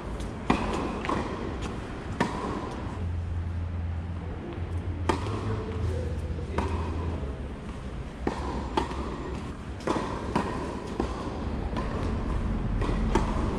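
Tennis balls being hit with rackets and bouncing on the court during play: a string of sharp pops spaced a second or a few seconds apart.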